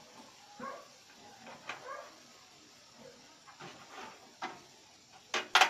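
Short pitched animal calls repeated every second or so, and a loud sharp clack about five and a half seconds in, as connectors and cables are handled inside an open computer case.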